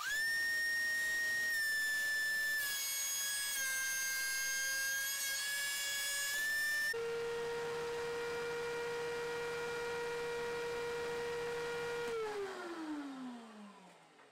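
DeWalt two-speed thickness planer spinning up to a high steady whine, which dips slightly in pitch while the cutterhead takes a light finish pass on a board. Later a lower steady tone takes over and glides down as the cutterhead winds down near the end.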